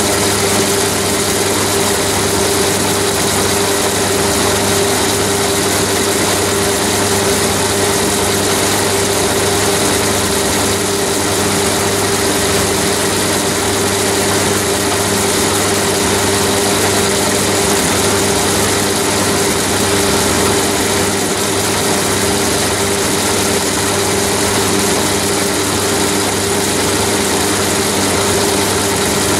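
Chinese mini lathe on a converted belt drive, running steadily at 540 rpm while milling steel. The motor and belt drive make an even hum with a clear steady tone.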